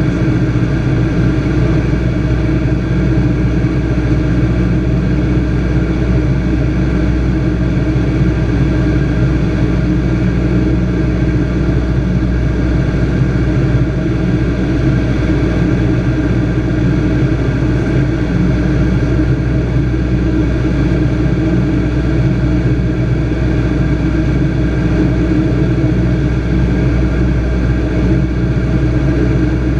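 Light aircraft's piston engine and propeller droning steadily, holding one constant pitch without power changes.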